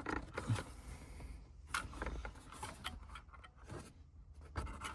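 Faint scraping and small clicks of plastic as an electrical connector is worked out of its socket behind a car's dashboard trim panel.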